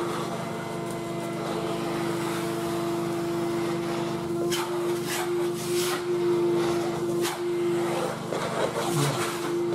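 Vacuum cleaner running with a steady motor whine as its hose nozzle sucks sawdust out of a gap in a laminate floor, with a few sharp knocks of the nozzle against the board edges around the middle.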